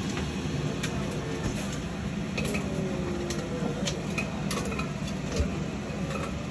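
A cooking utensil clicking and scraping against a wok, several light separate clicks, over a steady low hum.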